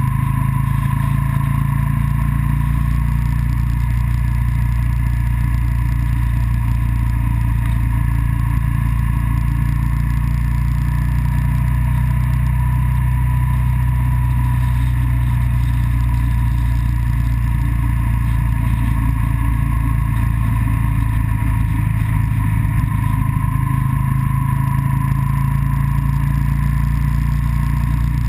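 Motor vehicle running at a steady cruise along the road: an even engine drone with a steady whine and continuous road and wind rush.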